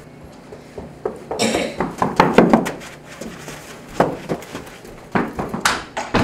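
A clattering cluster of knocks and thuds in the first few seconds, then single sharp knocks spaced about a second apart.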